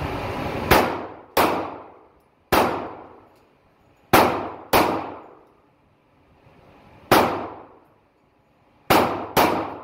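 Glock 9mm pistol fired eight times at an uneven pace, with pairs of quick shots and longer pauses between. Each shot echoes off the walls of an indoor range.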